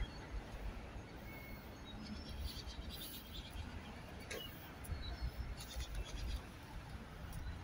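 Faint street ambience: a low steady rumble with scattered short, high chirps and twittering of small birds, busiest about two to three seconds in and again near six seconds.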